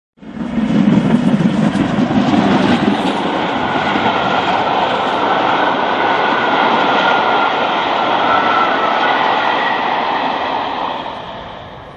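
A train running at speed, a loud continuous roar with wheels clattering over the rails, fading away near the end.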